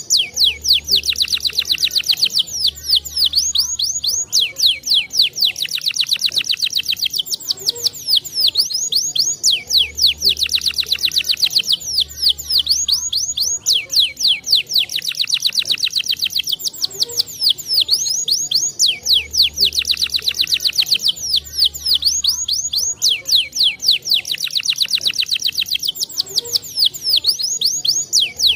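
Domestic canary singing: long, very rapid trills and rolling phrases, high-pitched and continuous. The same run of phrases comes round again about every nine seconds, as in a looped song recording played to prompt canaries to sing.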